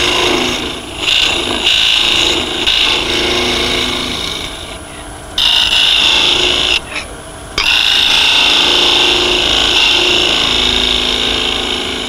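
Skew chisel cutting the bottom face of a small spinning piece of wood on a lathe: a scraping hiss in several passes, with short breaks about halfway through, over the steady hum of the running lathe.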